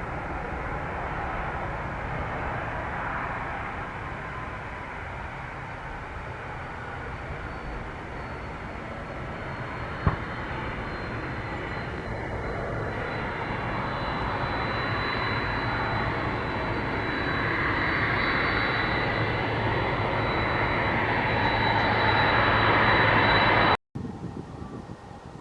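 Jet airliner engines running, the noise steadily growing louder as the aircraft comes closer, with a thin high whine over the rumble. There is a single sharp click about ten seconds in, and the sound cuts off abruptly near the end.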